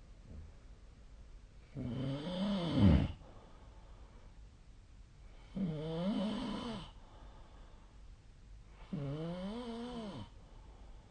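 A person snoring in sleep: three snores, each a bit over a second long and about three and a half seconds apart, each a pitched buzz that rises and falls. The first snore is the loudest.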